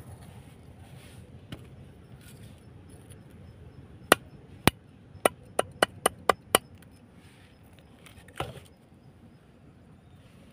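Machete blade chopping a small piece of fresh bamboo on a wooden board: two sharp chops, then six quick ones about four a second, and a softer knock a couple of seconds later.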